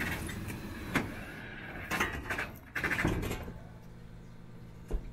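Several sharp knocks and clanks, roughly a second apart, from aluminium solar mounting rails being handled and set down on clay roof tiles.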